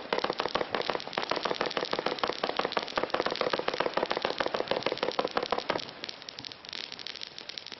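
Volt! Mystic Fan 200-shot compound fireworks battery in 20 mm calibre with low-noise effects, firing a rapid run of soft pops and launch thuds. The run thins to scattered pops about six seconds in.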